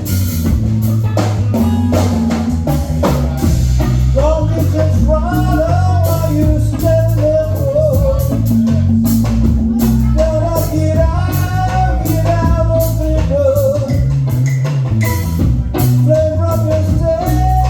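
A rock band playing live: a drum kit keeps a steady beat under a busy bass line, and a wavering lead melody, voice or guitar, comes in about four seconds in.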